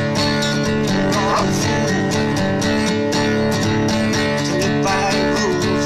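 Acoustic guitar strummed in a steady rhythm, several notes ringing together as full chords.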